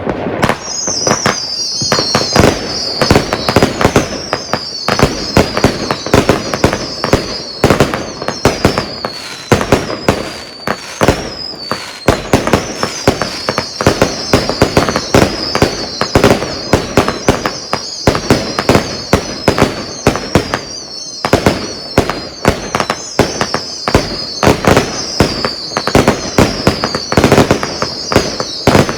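SVEA Bandit fireworks cake, 103 shots of 22 mm calibre, firing a loud, continuous rapid barrage of launches and bursts, with high whistles falling in pitch over and over.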